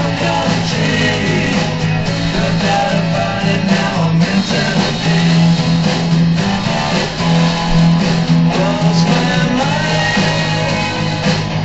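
Loud music playing: a rock song with guitar and a singing voice.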